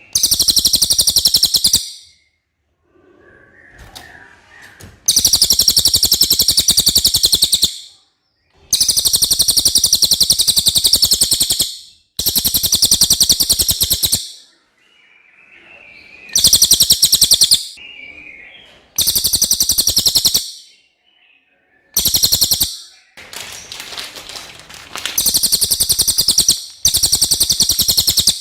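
Cililin songbird singing: about nine loud, high-pitched bursts of very rapid repeated notes, each lasting one to three seconds, with short pauses between them.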